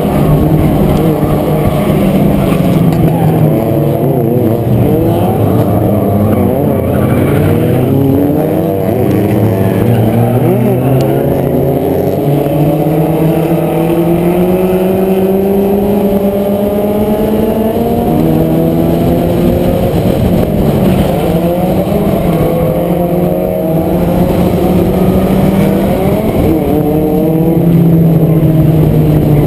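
Race car engines at high revs in a tight pack, heard close up from on the car: its own engine note climbs slowly and drops with the throttle, about 12 s in and again near the end, over the overlapping engines of the surrounding cars.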